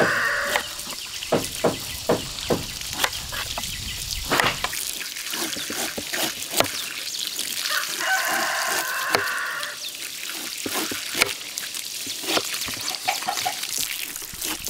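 A rooster crowing: the end of one crow at the start and one long crow about eight seconds in, with scattered knocks and clicks around it.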